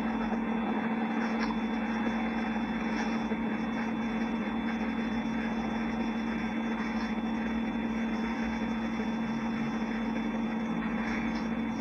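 Room tone in a pause between speech: a steady, unchanging hum with one constant tone over a soft background hiss, with no voices.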